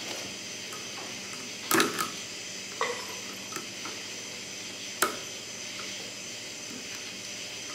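Small metal clicks and taps as a snap ring is worked onto the splined end of a Dana 60 front axle shaft with a pick, a few scattered clicks with the sharpest near two seconds in and another about five seconds in.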